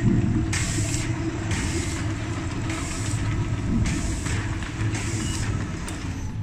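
A two-side bottle labeling machine running, with a steady low hum from its conveyor and motors. A short hiss comes again about once a second.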